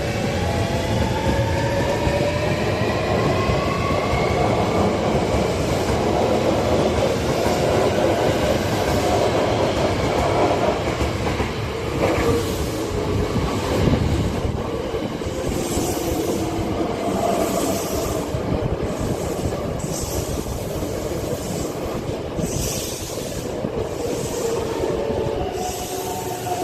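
Hankyu electric commuter trains running past close by on a curve: a steady rumble of wheels on rail, a whine rising in pitch over the first few seconds, and a run of short high hissing sounds in the second half.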